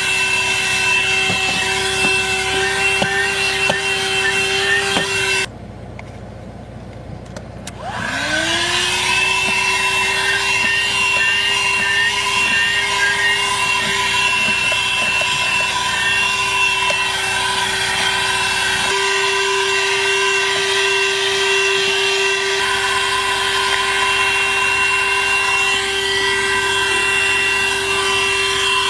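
A ThisWorx 12-volt corded handheld car vacuum runs with a steady high whine. It is switched off about five seconds in and switched back on a couple of seconds later, its motor whine rising in pitch as it spins back up. The low rushing of the airflow drops away for a few seconds about two-thirds of the way through.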